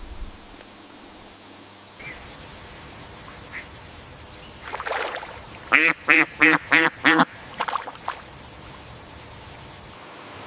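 Duck quacking: one call about halfway in, then a quick run of about six quacks and a few fainter ones after.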